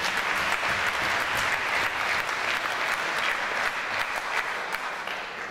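Audience applauding, many hands clapping, slowly dying down near the end.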